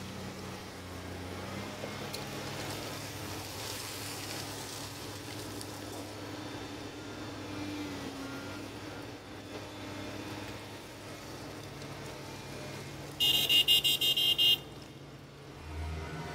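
Komatsu hydraulic excavator's diesel engine running steadily at working revs, a low hum while it digs and swings. Near the end a horn sounds in a quick series of loud beeps lasting about a second and a half.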